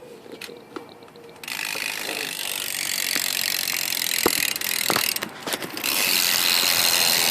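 Primo Mixtape rear hub on a BMX bike freewheeling as the wheel spins: fast ratcheting pawl clicks that run together into a buzz. It starts about a second and a half in and gets louder near the end.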